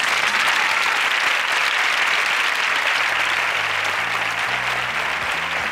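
Studio audience applauding steadily, starting abruptly.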